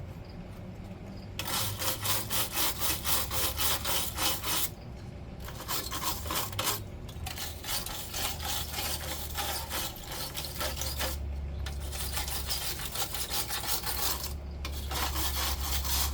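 Rapid back-and-forth rubbing strokes by hand on a part being restored, in about five bouts with short pauses between. A low steady hum runs underneath.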